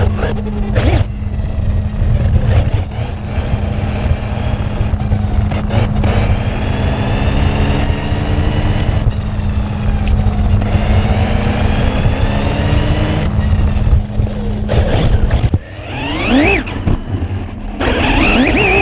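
Vehicle noise: a steady low rumble and hum, with motor whines that rise and fall in pitch, strongest in the last few seconds.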